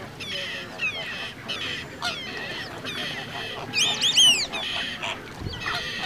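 A flamingo flock calling, a continuous goose-like honking and gabbling of many birds at once, with a louder cluster of calls about four seconds in.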